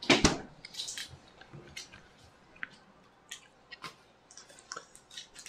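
A thump right at the start, then scattered light clicks and scrapes of spoons against plastic pudding cups, with soft eating sounds.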